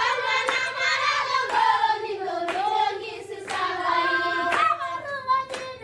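A group of voices singing together with hand claps about once a second.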